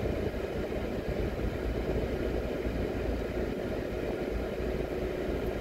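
Steady low rumble of a car driving, its engine and tyre noise heard from inside the cabin, with a faint steady hum.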